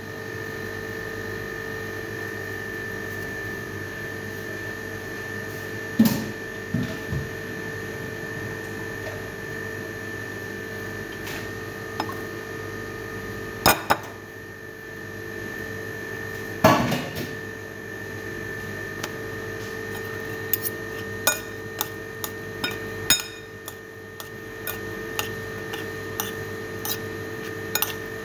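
Kitchenware being handled: scattered knocks and clinks of dishes and utensils, coming thick and fast over the last several seconds, over a steady machine hum.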